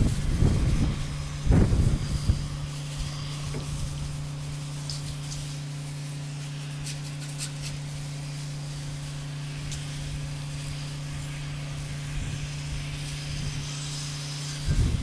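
Soft-wash spray rig's pump running with a steady hum, over the faint hiss of the spray wand. Wind buffets the microphone at the start and again at the very end.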